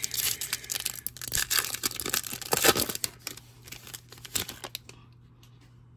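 Plastic wrapper of an Upper Deck hockey card pack being torn open and crinkled, a dense run of crackles over the first few seconds, thinning out and stopping about five seconds in as the cards are pulled free.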